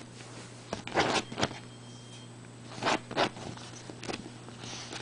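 Dog's claws scratching and digging at couch cushions in a few quick scraping bursts, loudest about a second in and again about three seconds in.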